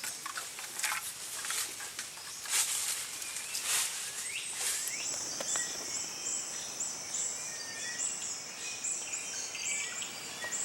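Tropical forest ambience in Sulawesi: scattered bird calls with short falling notes, then from about five seconds in a high, steady, pulsing insect chorus.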